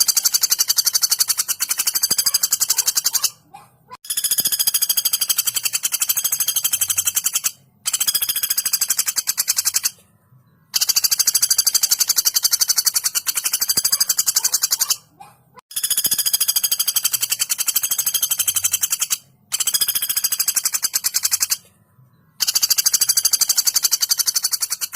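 Female common flameback woodpecker (pelatuk bawang) giving long, very fast rattling calls, about seven in a row, each lasting two to four seconds with brief pauses between.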